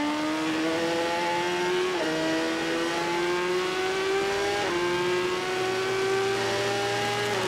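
Racing motorcycle engine accelerating under load, its pitch climbing steadily and dropping sharply at three upshifts, about every two and a half seconds.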